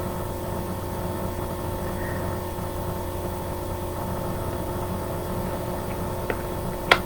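Steady background hum made of several fixed tones, with a small click about six seconds in and a sharper, louder click near the end.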